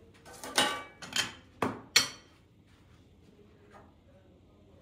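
Kitchenware clinking and clattering: four sharp strikes of dishes and a pot, each with a short ring, in the first two seconds.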